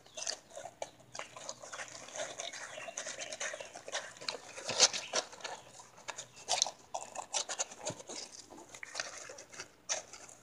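Newborn puppies suckling at their mother's teats: a rapid, irregular run of wet smacking and sucking clicks, with one louder smack a little before halfway through.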